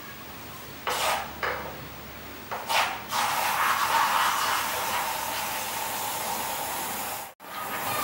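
A few short rustling bursts, then a steady hiss of water running into an automatic livestock drinking bowl as an alpaca drinks from it. The hiss drops out for an instant near the end.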